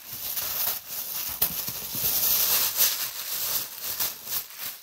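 Packaging wrapping rustling and crinkling in an irregular run of crackly rustles as a handbag is lifted out and unwrapped.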